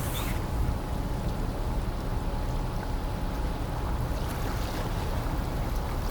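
Steady low rumble of a car ferry's engines coming into port, under a wash of wind and water noise, with a faint steady hum throughout.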